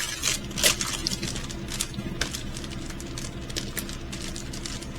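Small plastic packaging of diamond-painting kits being handled: scattered light clicks, taps and crinkles, over a steady low hum.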